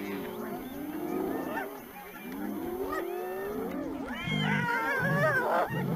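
Spotted hyenas calling and lions growling and snarling at each other over a kill. A cluster of loud, high, wavering hyena calls comes in about four seconds in.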